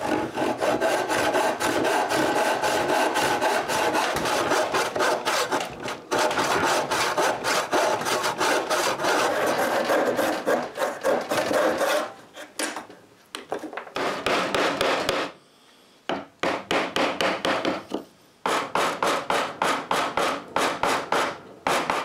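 Hand saw cutting tenons in a wooden board with quick back-and-forth strokes. It saws steadily at first, then goes on in shorter runs with a few brief pauses.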